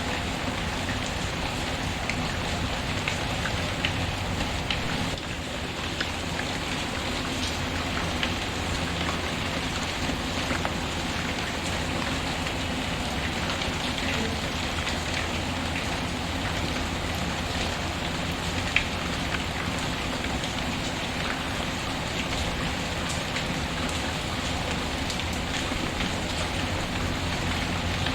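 Steady rain hissing evenly, mixed with a wood fire whose scattered sharp crackles and pops sit on top, one louder pop about two-thirds of the way through.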